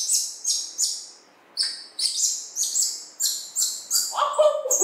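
Young macaque giving a rapid series of short, high chirping squeaks, about two to three a second, each falling in pitch.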